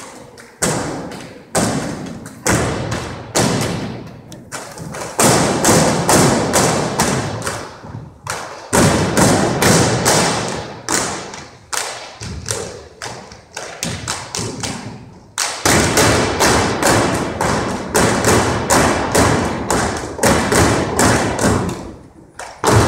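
Unarmed drill team stomping and striking in unison: quick runs of sharp hits that ring in a large gymnasium, with short pauses between sequences.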